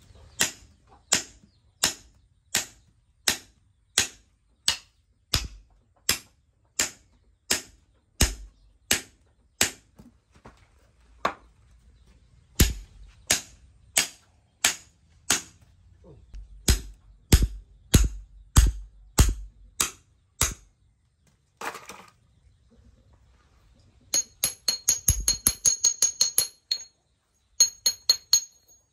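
Hand hammer striking a steel bar in steady, evenly spaced blows, about three every two seconds, for some twenty seconds. Near the end comes a fast run of lighter blows on a steel anvil block, each ringing with a high metallic ping.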